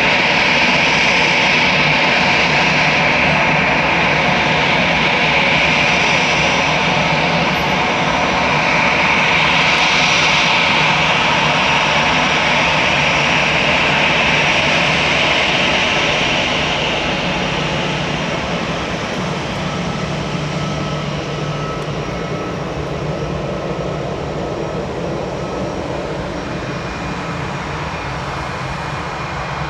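Airbus A319 jet engines running steadily at low power, a dense rush with a high whine on top, easing off and growing quieter past the middle.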